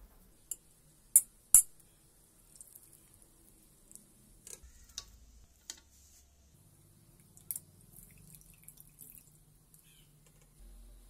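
Water dripping and light taps as soaked soya chunks are squeezed out by hand and set down on a stainless steel plate. A few sharp clicks in the first two seconds are the loudest, followed by scattered softer ticks and drips.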